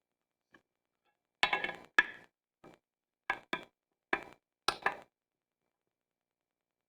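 About eight short metal clinks and knocks at irregular spacing, from hand tools and hardware being handled while nuts are fitted during the can crusher's assembly.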